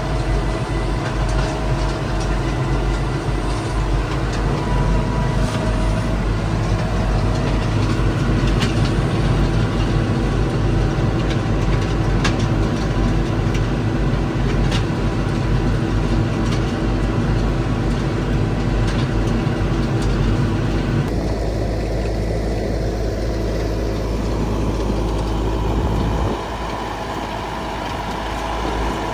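Stone crushing machine running with a steady engine drone, with frequent sharp cracks as stones are broken. The sound changes about three-quarters of the way through and becomes somewhat quieter near the end.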